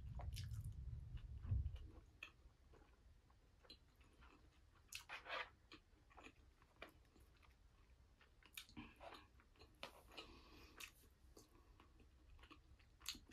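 Soft chewing of a mouthful of curry and rice, with scattered small clicks and scrapes of a plastic spoon in a plastic takeout container. A dull low bump comes in the first two seconds.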